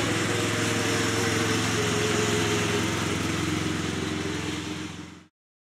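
Husqvarna CTH151 ride-on lawn tractor's engine running steadily as it drives past, fading out about five seconds in.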